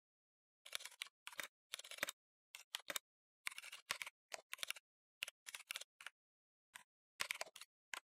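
Typing on a computer keyboard: quick runs of sharp keystroke clicks broken by short pauses.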